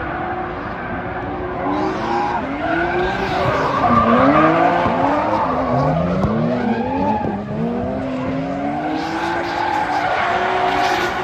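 Two drift cars, one a Toyota Chaser, sliding in tandem. Their engines rev up and down again and again, loudest about four seconds in, over the screech of the spinning tyres.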